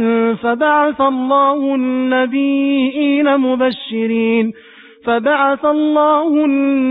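Quran recitation chanted in melodic tajweed style by a solo reciter, with long held and gliding notes. A brief pause for breath comes about two-thirds through, and then the recitation resumes.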